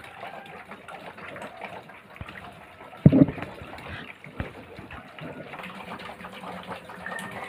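Bicycle wheel fitted with plastic bottles spinning on its stand and belt-driving a small motor, giving a steady rushing noise, with one loud thump about three seconds in.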